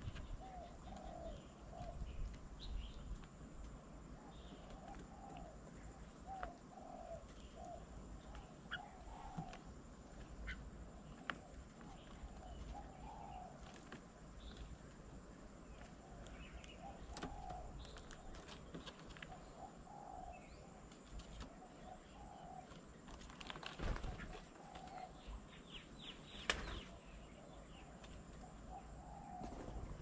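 Doves cooing softly, short low notes repeated over and over, with faint chirps of small birds. Two louder flutters of wings come about three-quarters of the way through.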